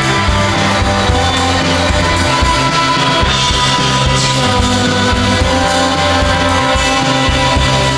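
Background music: a rock song with guitar and a steady bass line.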